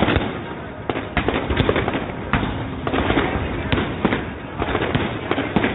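Fireworks going off: a rapid, irregular series of sharp bangs and pops, several a second, over a continuous crackling din.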